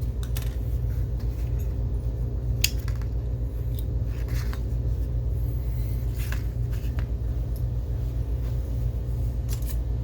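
Scattered small clicks and clinks of metal and plastic projector parts being handled while the colour wheel assembly is taken apart, over a steady low hum.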